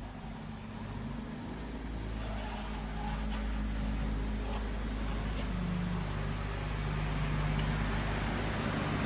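BMW 540i's turbocharged inline-six engine running at low steady revs: a low hum whose pitch shifts slightly partway through, growing a little louder.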